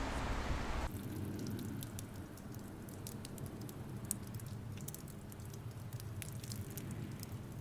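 Faint, scattered patter of water drops falling in wet, thawing weather, after a steady rushing noise that cuts off abruptly about a second in.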